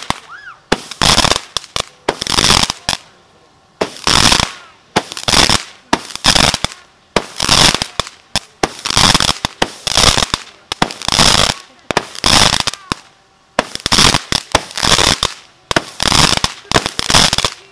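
Consumer fireworks cake firing shot after shot from a ground tube, about one shot a second, each shot a sharp burst that fades within about half a second.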